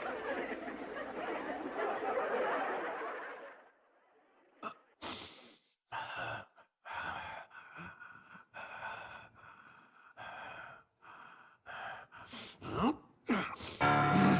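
Sitcom laugh track of audience laughter for the first few seconds. Then comes a run of short dubbed comedy sound effects and gasps, with two quick falling whistle-like glides near the end.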